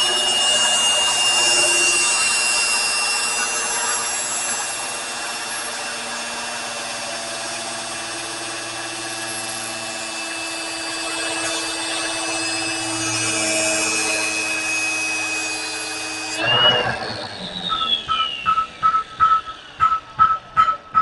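Electric power tool running steadily with a high whine and a hiss, switched off about three-quarters of the way through and winding down in pitch. Quick metal-on-metal taps follow near the end, about three a second, each with a clear ringing note.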